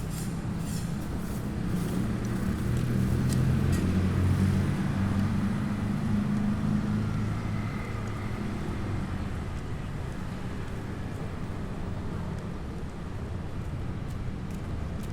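City street traffic: motor vehicles passing with a steady low engine rumble, swelling as a vehicle goes by in the first half and then settling back to a constant traffic hum.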